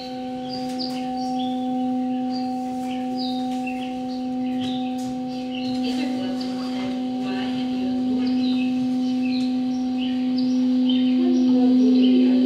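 A sustained low ringing tone with fainter higher overtones, slowly swelling louder, over birds chirping throughout.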